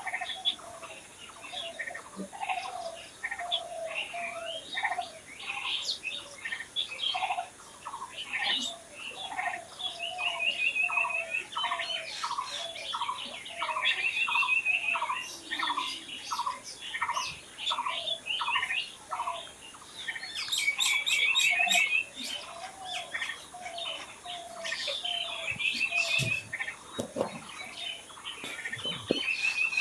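Several songbirds chirping and singing together in a dense dawn-chorus-like mix. Low repeated notes run under higher chirps, and a fast, even trill recurs every few seconds.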